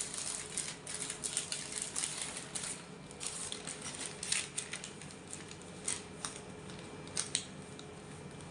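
Sterile glove packet being opened and the gloves handled: irregular crinkling and crackling of the wrapper with light clicks, busy for the first few seconds and sparser after.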